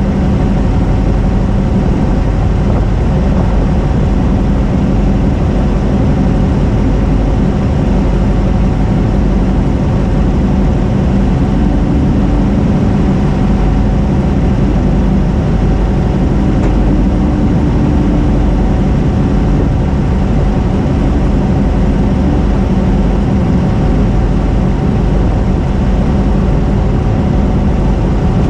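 Off-road race car's engine running steadily at a near-constant speed, heard from on board the car.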